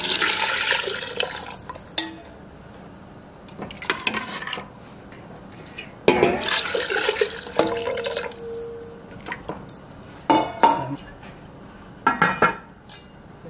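Water poured from a bowl into a metal pot of browning and chopped seasonings, in two pours, each a splashing rush of a second or two. Short clinks and knocks of the bowl against the pot come between and after the pours.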